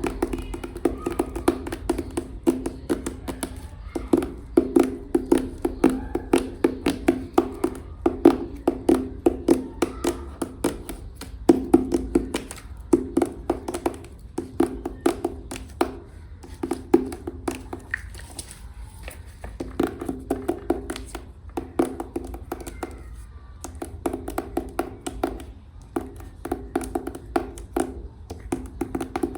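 Long fingernails tapping fast on clay containers, in quick runs of taps broken by short pauses. Each tap rings with a short, low hollow tone.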